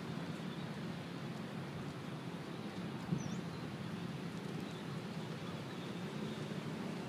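Outdoor ambience: a steady low rumble, with a single short bird chirp about three seconds in.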